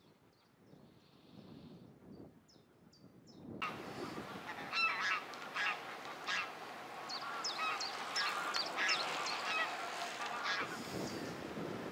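A flock of geese honking, many overlapping calls at once, starting abruptly about three and a half seconds in. Before that, only faint, high, short bird chirps.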